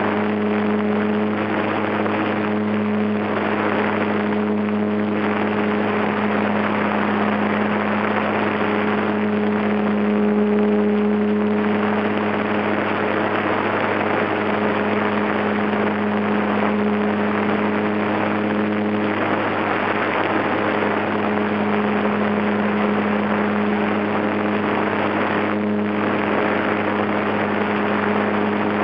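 HobbyZone Super Cub's brushed electric motor and propeller whining steadily in flight, heard from a camera on board the plane, with a rush of air over the airframe. The pitch holds steady throughout.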